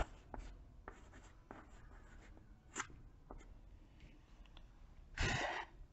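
Chalk writing on a chalkboard: a faint run of short scratches and taps as the words are written. A louder short scratchy sound comes about five seconds in.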